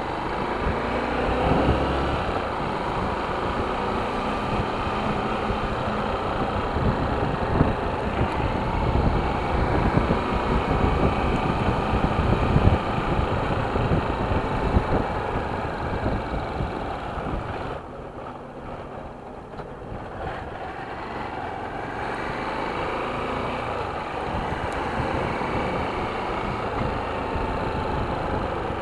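Motorcycle engine running while being ridden, its pitch rising and falling with the throttle. It drops quieter for a couple of seconds about two-thirds of the way through, then picks up again.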